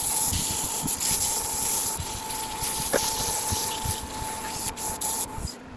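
180-grit sandpaper held against hickory spinning on a wood lathe: a steady hiss with a thin steady whine under it, cutting off shortly before the end.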